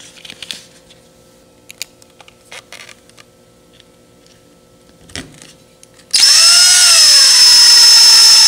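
A few faint handling clicks, then about six seconds in a small electric screwdriver starts up loud and runs driving a screw into a plastic light-bucket mount. Its whine falls in pitch at first, then holds steady.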